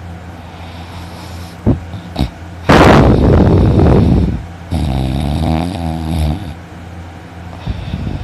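A sleeping man snoring loudly: two long snores, the first harsh and noisy about three seconds in, the second a buzzing, pitched one right after it, each lasting well over a second. A steady low hum sits under them, with two short clicks just before the first snore.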